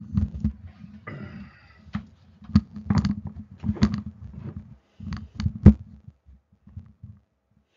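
Microphone handling noise: low rumbling thuds with a string of sharp clicks and knocks, the loudest knock near the end, as the mic or the clothing near it is touched and shifted.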